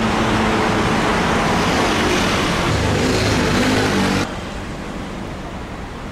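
Road traffic: vehicle engines and tyre noise with a low engine hum. About four seconds in the sound drops suddenly to quieter traffic.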